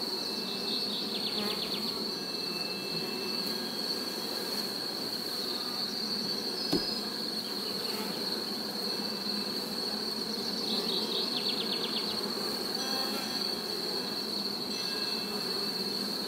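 Honeybees buzzing around an opened hive as a low hum, under a steady high-pitched insect trill with short pulsing chirp trains. A single short knock about halfway through.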